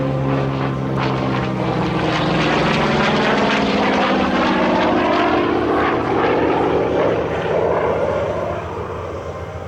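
Goodyear FG-1D Corsair's Pratt & Whitney R-2800 radial engine and propeller making a pass, growing louder through the middle with the engine pitch falling as it goes by, then fading near the end.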